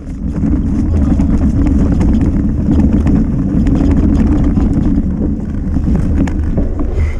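Mountain bike rattling and clattering over rough trail on a fast descent, with wind rumbling on the microphone. Frequent sharp clicks and knocks, and a short squeak near the end.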